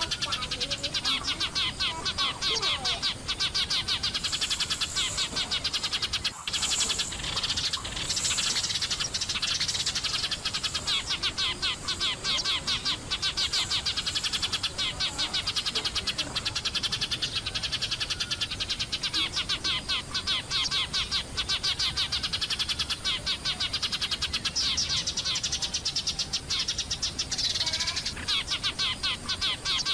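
A flock of Eurasian tree sparrows chirping continuously, many dense, rapid high chirps overlapping.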